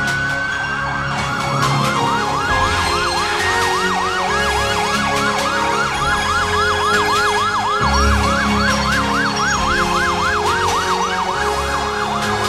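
Electronic siren on a fire truck in a slow convoy: a wail that finishes rising and holds its top pitch for about the first second, then switches to a fast yelp sweeping up and down about three times a second.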